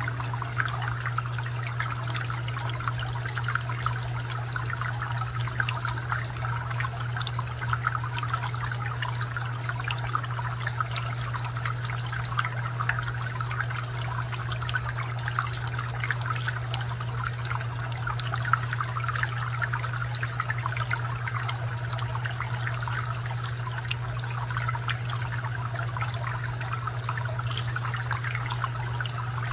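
Garden fountain water trickling and splashing steadily over a constant low hum.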